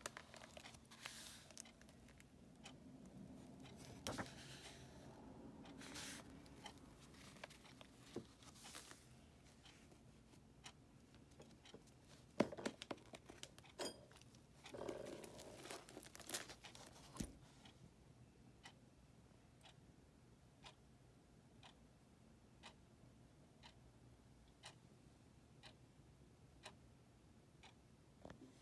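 Quiet rustling and clicking of the paper pages of an old hardback book being handled and turned, in a few bursts over the first half. Faint ticking about once a second runs underneath, clearest in the second half.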